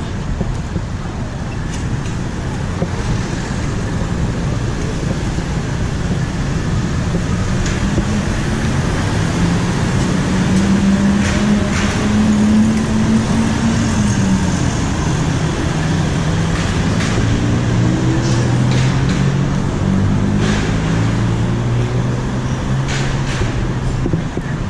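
Road traffic with a motor vehicle's engine pulling away. Its note climbs and holds, drops about halfway through, then climbs again in several rising steps, as it would when working up through the gears.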